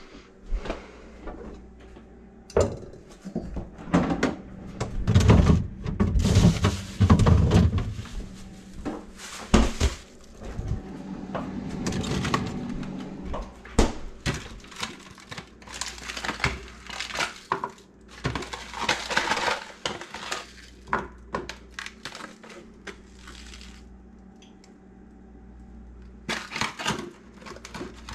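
Kitchen prep handling sounds: a frying pan and utensils knocking and clattering, plastic food packaging crinkling, and items set down on a plastic cutting board. It comes as an irregular run of knocks and rustles, loudest a few seconds in.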